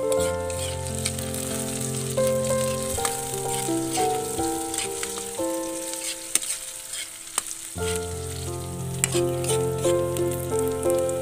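Food sizzling and crackling as it fries, under background music: a stepped melody over a bass line, the bass dropping out for a couple of seconds midway.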